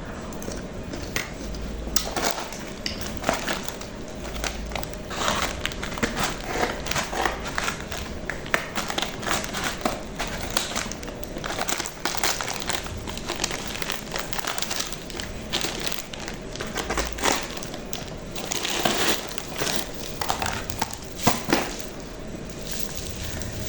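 Irregular crinkling and crackling as a package of shallots is opened and handled, with dry wrapping and papery skins rustling in quick, uneven bursts.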